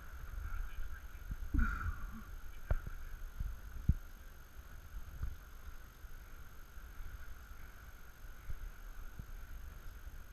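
Low rumble of wind and handling noise on an action camera's microphone, with a few dull knocks, the sharpest about three and four seconds in.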